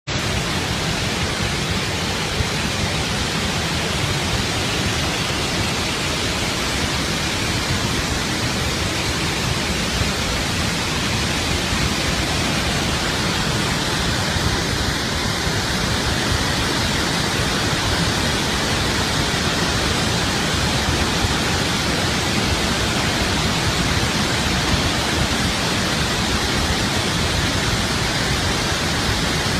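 Water pouring through the Tarbela Dam spillway in flood: a steady, loud rush of water that does not let up.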